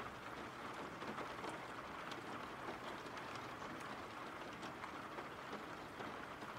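Steady rain, an even hiss with scattered light drop ticks.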